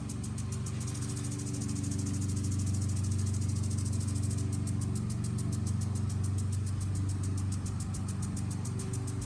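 A lawn mower engine running steadily, with a lawn sprinkler ticking rapidly and evenly over it. Between about one and four and a half seconds in, the ticking blurs into a steady hiss.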